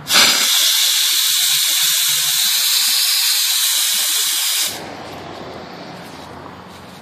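Steam pressure-release valve on a homemade steam-boiler smoker venting: a loud, steady hiss of steam that starts suddenly and cuts off after about four and a half seconds, leaving a fainter hiss that fades away.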